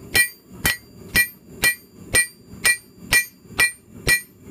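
Rounding hammer striking red-hot plow steel on an anvil in an even rhythm, about two blows a second, each with a short metallic ring. The steel is being drawn out thinner toward knife-blade thickness.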